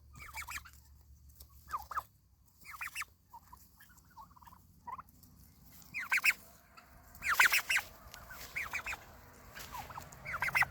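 Bird calls: short rattling bursts of quick notes, repeated every second or so, the loudest about seven and a half seconds in.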